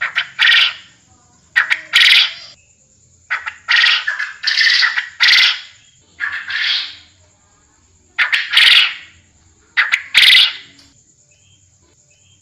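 Quail calling: about a dozen short, harsh, high calls in pairs and threes, with a faint steady high whine underneath. The calls stop about two seconds before the end.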